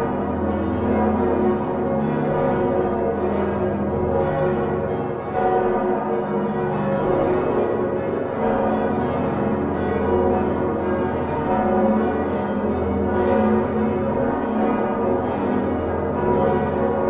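Many heavy church bells of the Utrecht Dom tower, swung on straight yokes, ringing together in the full peal. Strokes fall constantly and overlap, their tones blending into one continuous, dense wash of sound.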